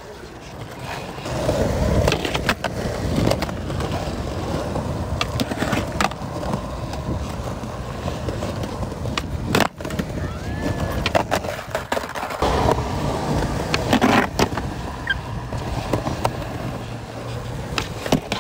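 Skateboard wheels rolling on concrete, with several sharp clacks of the board hitting the ground as tricks are popped and landed.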